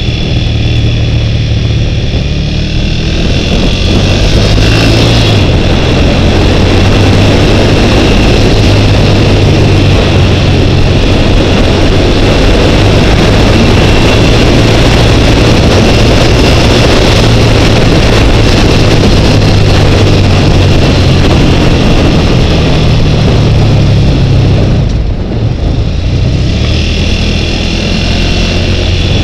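Twin-cylinder motorcycle engine running under way, heard from a helmet camera with heavy wind rush over it. The engine and wind noise grow louder about four seconds in and ease off near the end.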